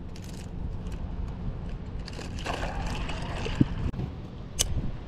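Low rumble of wind on the microphone, with crunching and scraping on loose shale rock in the middle as the angler moves and handles his gear, a dull knock, and one sharp click near the end.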